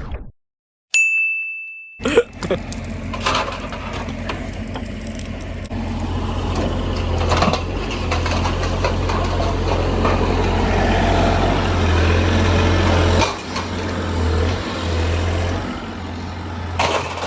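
A brief ding tone, then the engine of a heavy machine running steadily with scattered knocks and clatter of wooden pallets being moved.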